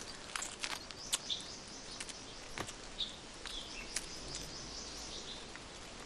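Rainforest ambience: a faint steady hiss with scattered sharp clicks and crackles, and a few short high chirps from birds or insects.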